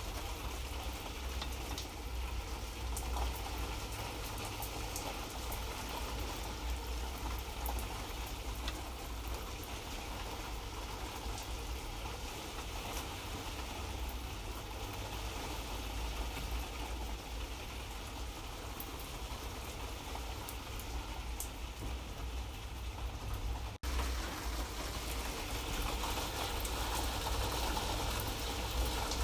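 Light rain falling steadily, a dense patter of fine drops over a low rumble. The sound breaks off for an instant about five seconds before the end.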